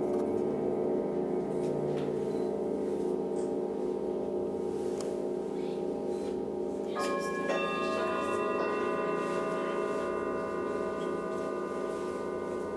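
Several large singing bowls ringing together in a long, pulsing sustain. About seven seconds in, two more bowls are struck with a mallet, adding higher ringing tones that hold and slowly fade.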